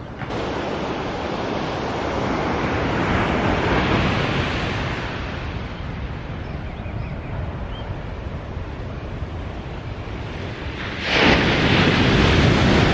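Ocean surf washing onto the beach, swelling about three seconds in and again, louder, about eleven seconds in.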